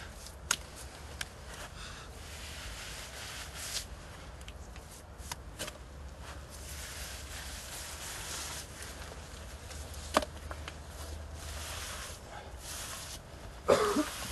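Damp sponge rubbing over fresh earth plaster inlaid with split-reed screening (canisse), a faint scrubbing that comes and goes, taking off the surplus plaster. A few small clicks sit among it, and a short louder knock comes near the end.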